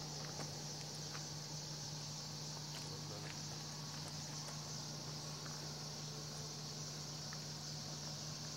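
Outdoor field ambience: a steady high-pitched chorus with faint, scattered short chirps over a low steady hum.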